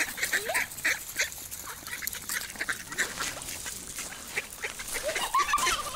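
A flock of mallard ducks quacking close by, a quick, busy run of short calls as they crowd in for food, with a brief high rising call near the end.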